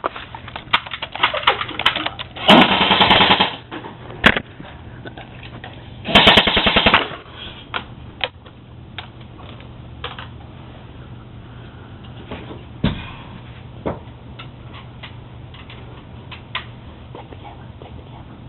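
Airsoft guns firing: two rapid full-auto bursts of about a second each, around three and six seconds in, with scattered single sharp snaps between them.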